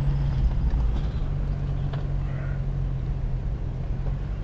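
A vehicle's engine running, a steady low drone heard from inside the vehicle.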